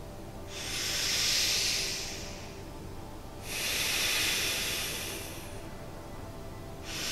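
Slow, deep breaths close to the microphone: three long airy breaths of about two seconds each, paced for the listener to breathe along in a guided meditation. Faint background music with held tones lies underneath.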